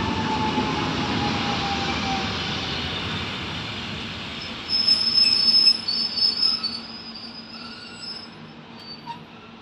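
Koleje Mazowieckie electric multiple unit slowing to a stop alongside the platform. A falling whine and wheel rumble fade away over the first few seconds. About five seconds in come loud, high-pitched brake squeals as the train halts.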